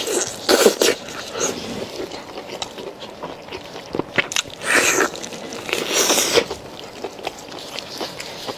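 A person biting and chewing beef steak, tearing the meat by hand, with small wet mouth clicks and a few louder bursts about half a second in and again around five and six seconds in.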